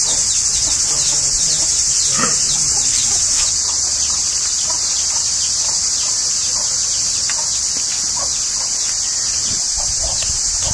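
A steady, high-pitched chorus of insects buzzing without a break, with occasional short faint calls lower in the background.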